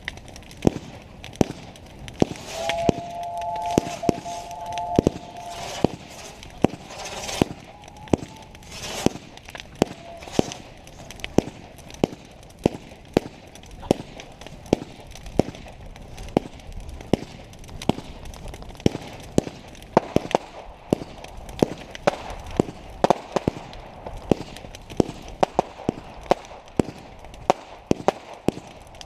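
Fireworks going off in a rapid string of sharp bangs, about one to two a second, with crackling between them. A steady whistling tone sounds for a few seconds near the start.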